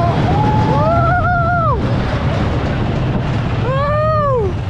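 Roller coaster riders screaming: two long yells that rise and fall in pitch, the second near the end, over a steady low rush of wind on the microphone as the ride moves.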